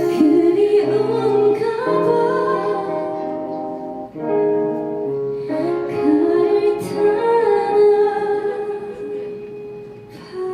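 Live busking music: a singer holding long, sliding notes over guitar accompaniment, the sound dipping briefly about four seconds in and easing off near the end.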